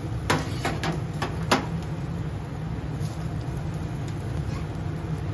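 Chicken yakitori skewers spitting and crackling over a gas-and-charcoal grill, with five or so sharp pops in the first second and a half, the loudest near the end of them. A steady low rumble runs underneath.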